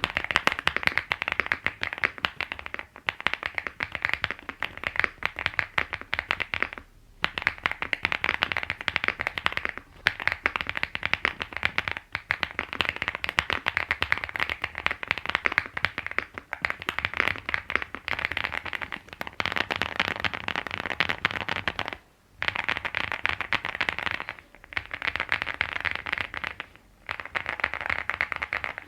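Steady typing on a stock Wobkey ZEN65 Ultra mechanical keyboard with factory-lubed Kailh Luna linear switches, a gasket-mounted FR4 plate and double-shot PBT keycaps. It is a dense run of keystrokes broken by brief pauses every few seconds.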